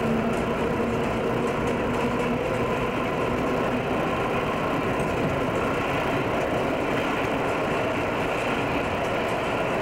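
Broad Street Subway heavyweight train running steadily: a continuous rumble of wheels and motors with faint steady tones, and a low hum that fades out a few seconds in.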